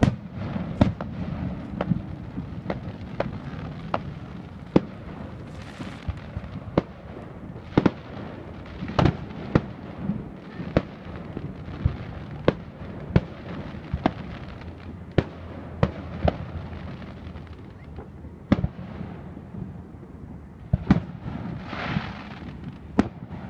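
Aerial fireworks display: shells bursting one after another in sharp bangs, roughly one or two a second, with a lull a few seconds before the end. A longer rushing hiss comes near the end.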